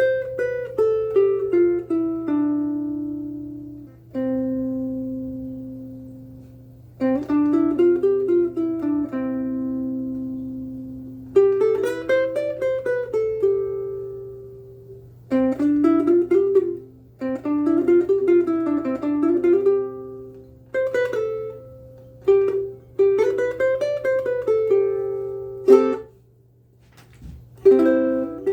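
Ko'olau KC-10 ukulele strung with aNueNue Clearwater strings, played solo: picked melody notes and arpeggiated chords in phrases that ring out and die away, with a short pause near the end. A faint steady low hum sits underneath.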